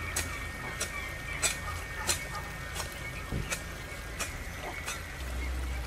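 Hoe blade chopping into garden soil, about eight evenly spaced strikes, one every two-thirds of a second.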